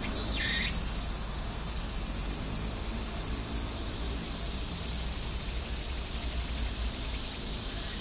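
Outdoor ambience: a steady high-pitched hiss of insects over a low rumble, with the last of a run of falling bird chirps in the first second.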